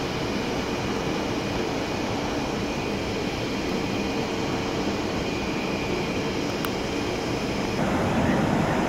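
ICE high-speed train's electric power car running with a steady hum and a faint whine, getting a little louder about a second before the end.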